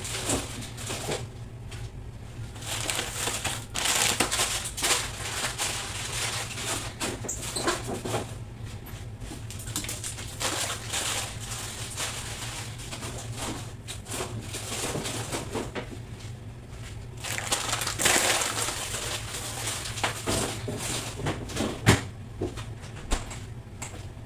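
Hand-cleaning of a refrigerator: irregular scrubbing, rustling and crinkling with scattered knocks and clicks as things are wiped and moved, one sharp knock near the end. A steady low hum runs underneath.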